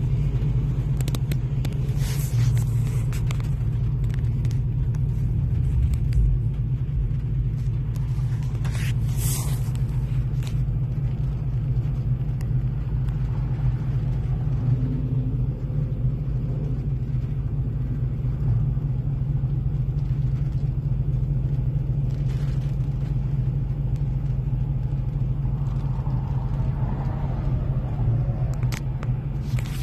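Steady low rumble heard from inside a car, with a few brief clicks and rustles, the clearest about nine to ten seconds in.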